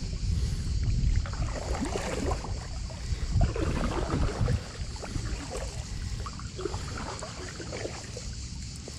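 Double-bladed paddle strokes dipping and splashing in calm water beside an inflatable kayak, irregular and strongest in the first half, over a steady low wind rumble on the microphone.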